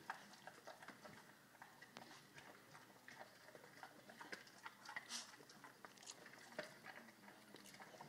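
A Rottweiler chewing and picking up treat crumbs off a rug: faint, irregular crunches and small clicks.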